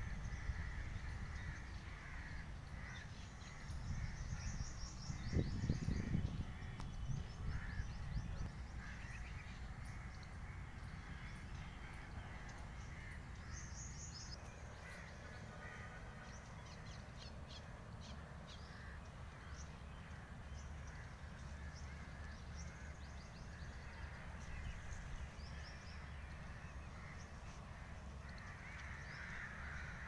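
Outdoor birds calling on and off, with a steady low rumble underneath.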